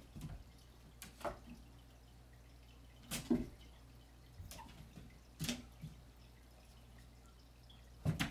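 A cat's paws tapping and thumping against a wall and landing on a hard box as it jumps and swipes. The knocks come irregularly, about ten in all, loudest about three seconds in and just before the end.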